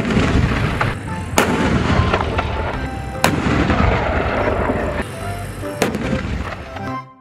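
A tank's engine and tracks rumbling, with four sharp bangs of gunfire about two seconds apart, over background music. The sound cuts off suddenly near the end.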